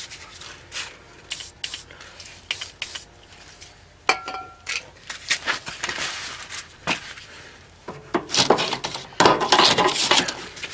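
Metal clinks and clanks of tools against an old, rusted car exhaust pipe as its rubber hangers are worked off. There is a short ringing clank about four seconds in, and denser clattering and rattling over the last few seconds.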